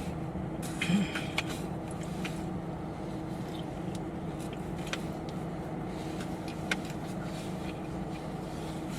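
Car engine running steadily, heard from inside the cabin, with a few small clicks.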